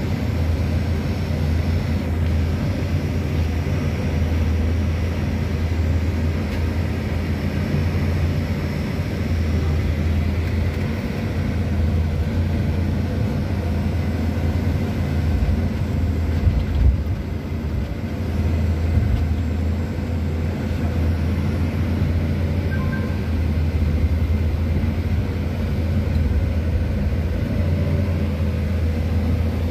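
Pindad excavator's engine running steadily with a low drone, heard from inside the operator's cab as the boom and bucket work in the pit. There is one brief louder thump about halfway through.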